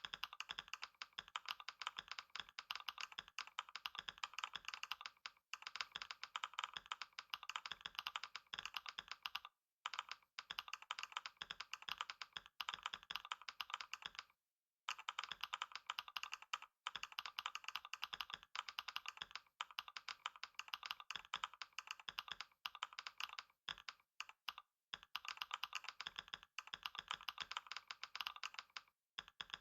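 Fast, continuous typing on a computer keyboard during a typing test: a rapid stream of keystrokes that stops briefly about ten seconds in and again about halfway through.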